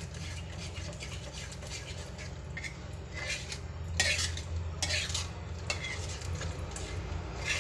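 Metal spoon stirring and scraping a thick curd-and-masala paste in a frying pan: a run of uneven scrapes, louder around four and five seconds in, over a steady low hum.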